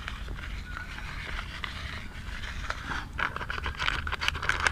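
Faint rustling with a few small ticks, then from about three seconds in a quick, busy rustling and scratching that grows louder: a small plastic bag being shaken to sprinkle supplement powder over mushroom spawn in a plastic basin.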